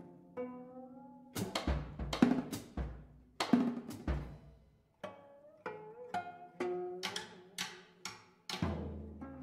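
Gayageum (Korean zither with movable bridges) played in separate sharp plucked or struck notes, several with a low thud at the attack. Some notes bend upward in pitch as the string is pressed, and each rings and dies away before the next.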